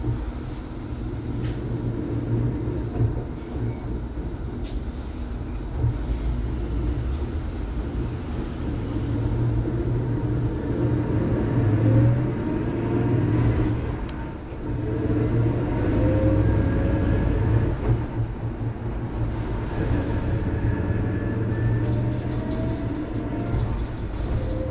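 Interior running sound of a Huade electric low-floor city bus: a steady low rumble with the electric drive motor's whine gliding upward several times as the bus pulls away and gathers speed. The uploader says the motor's abnormal noise is getting worse.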